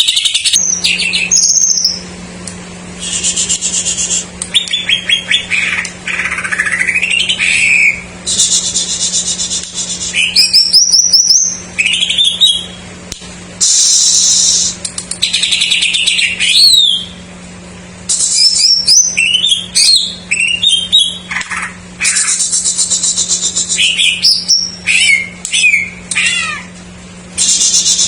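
Cucak ijo (green leafbird) singing a long, varied song full of other birds' phrases: fast buzzy trills alternate with sweeping up-and-down whistles, broken by short pauses. A steady low hum runs underneath.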